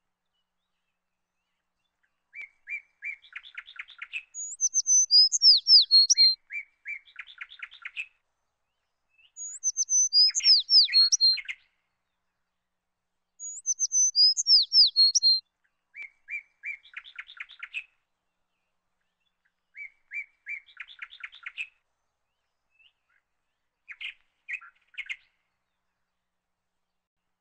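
A songbird singing in separate phrases with short silent pauses between them. Some phrases are runs of short repeated notes ending in a rapid trill; others are clear, high, descending whistles, which are the loudest parts.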